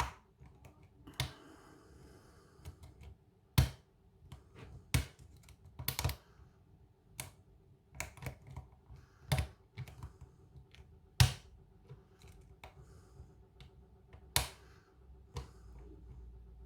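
Lock pick and tension wrench working the pins of a kik cylinder lock: irregular sharp metallic clicks and ticks, with about eight louder clicks scattered among them.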